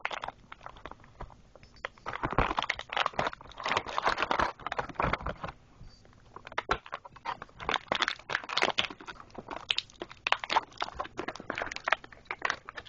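Toy packaging being opened and handled: irregular crinkling, rustling and clicking of cardboard and plastic, in clusters with short pauses.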